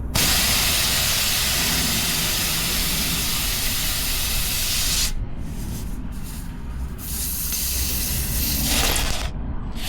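Air hissing out of a tyre's puncture hole where the nail has just been pulled. It starts suddenly and loud, falls away and breaks up after about five seconds, then swells again before cutting off shortly before the end.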